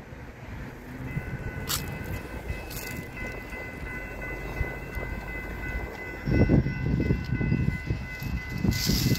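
A train horn sounding a held chord of several tones, starting about a second in, with low rumbling swells near the middle and again near the end.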